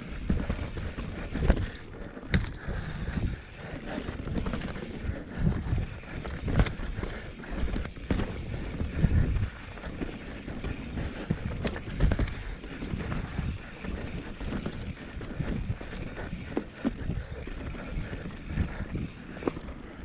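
Mountain bike descending a dry dirt singletrack: wind buffeting the microphone, tyres rolling over dirt, and frequent rattles and knocks from the bike over bumps, with several sharp clicks.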